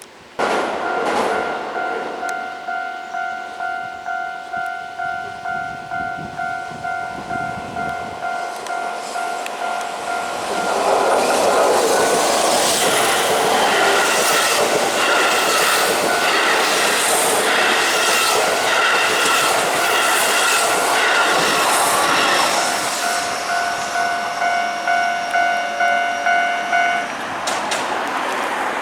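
A Japanese railway level-crossing alarm starts suddenly and rings at about two strikes a second. About ten seconds in, a Keihan Main Line electric train passes over the crossing with loud wheel and rail noise and clatter for about twelve seconds. The crossing bell then rings on alone until it stops near the end.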